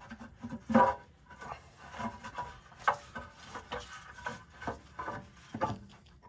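Irregular metal clinks, knocks and scraping from hand work on a skid steer's drive chain and sprockets, some knocks ringing briefly.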